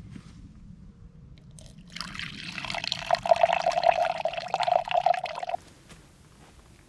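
Lukewarm water poured in a stream into the flour mix for flatbread dough, starting about two seconds in and stopping abruptly after about three and a half seconds.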